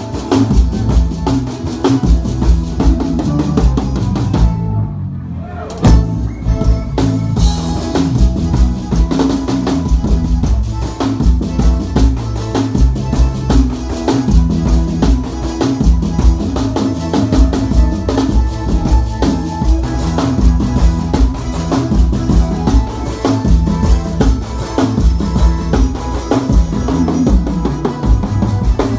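Band music without singing: a drum kit keeps a steady beat with bass drum and snare over moving bass lines. The higher instruments and cymbals drop out for about a second around five seconds in, then the full band comes back.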